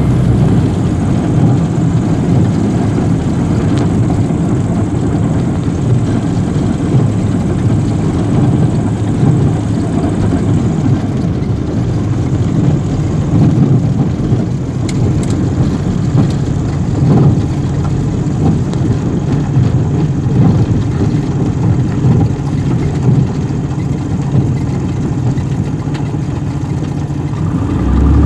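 Single-engine piston aircraft's engine and propeller running steadily at low taxi power, heard from inside the cockpit as the plane rolls along a grass airstrip.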